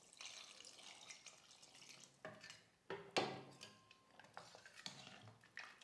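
Steel ladle stirring watery mutton curry in a pressure cooker pot: faint liquid stirring with a few light clinks and scrapes of the ladle against the pot, the loudest about three seconds in.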